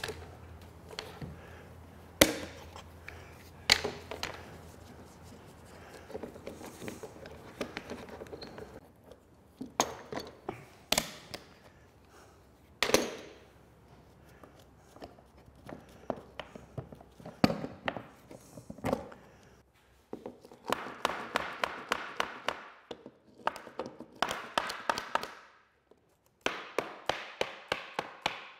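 Quick-release bar clamps being loosened and taken off a glued oak lamination: clicks of the release triggers and sharp clacks and knocks as the clamps and jaws hit the wooden jig and bench. In the last eight seconds, three bursts of rapid scraping strokes as dried glue squeeze-out is cleaned off the stem.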